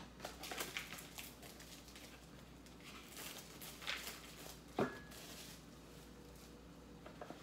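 Faint rustling and light taps of instant-noodle seasoning packets and packaging being handled and torn open, with one sharper click about five seconds in.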